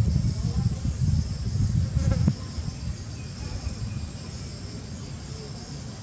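Insects chirping high and steadily in a pulsing rhythm of about three pulses a second, pausing now and then. A low rumble underneath is the loudest thing at first and stops with a click a little over two seconds in.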